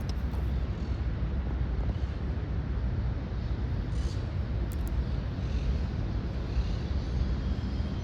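City-park ambience carried by a steady low rumble, with faint high bird chirps about four seconds in and again near the end.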